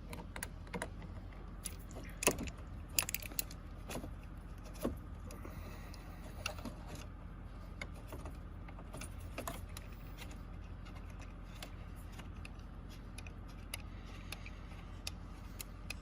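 Scattered light metallic clicks, taps and rattles of keys and small door-lock parts being handled, with the sharpest knocks in the first five seconds, over a faint steady low hum.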